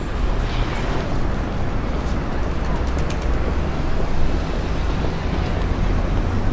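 A loud, steady low rumble with a dense hiss over it and a few faint clicks.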